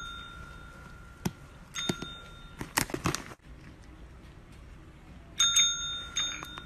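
Desk call bell struck by a cat's paw: it dings about two seconds in and twice more in quick succession near the end, each ring hanging on as it fades. A short flurry of clicks and scuffles comes between the rings.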